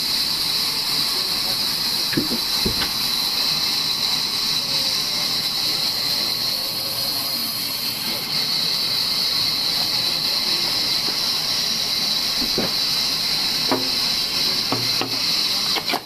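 Large sawmill bandsaw running with a steady high hiss as a log is fed along its table into the blade, with a few light knocks of wood.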